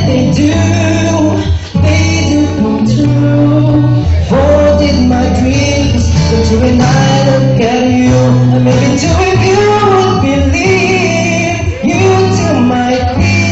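Music with singing voices over steady bass notes, with no clear words.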